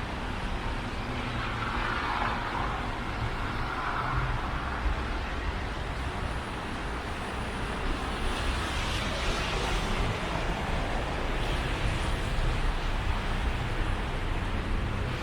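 City road traffic: a steady rush of engines and tyres, with vehicles going by a couple of seconds in and again about eight to twelve seconds in.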